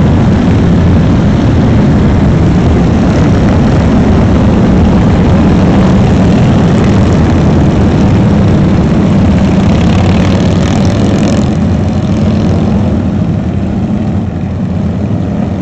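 A procession of cruiser motorcycles riding past, their engines making a loud, steady combined rumble. The rumble eases off somewhat in the last few seconds.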